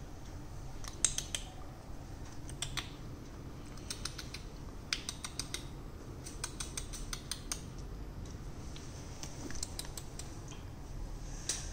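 Scattered light, sharp clicks in small irregular clusters from a Ragdoll kitten moving about on a tiled floor, over a low steady room hum.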